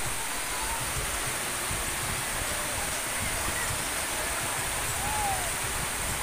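Steady, even hiss of rain falling, heard from under a corrugated metal roof.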